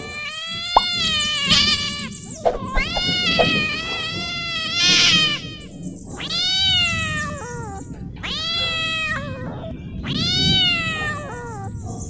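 Cat yowling in a string of about six long, drawn-out meows, each one to two seconds, rising and then falling in pitch, angry in tone.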